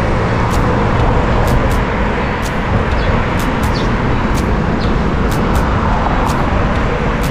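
Steady wind and road rumble on the microphone of a camera riding along on a moving bicycle, with faint sharp clicks scattered through it.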